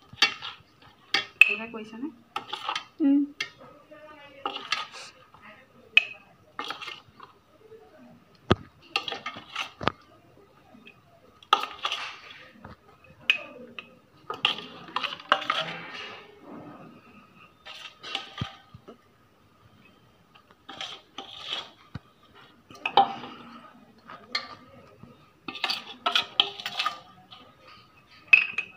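Metal spoon scraping the inside of a stainless steel bowl and clinking against the rim of a glass jar as chilli pickle is spooned into the jar, in intermittent clinks and scrapes.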